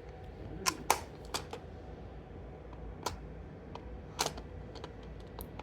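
A handful of sharp, separate clicks and taps, about seven scattered irregularly over five seconds, over a low steady background hum.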